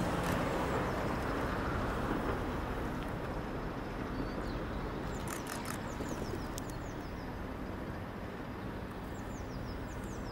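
Class 73 electro-diesel locomotive and the Class 375 unit it is pushing, a steady low rumble of engine and wheels on the rails that slowly fades as the train moves away. Small birds chirp a few times, around the middle and near the end.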